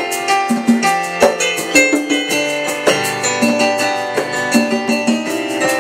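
Live band playing an instrumental passage: a keyboard synthesizer plays sustained chords and melody while congas keep the rhythm with regular hand strikes.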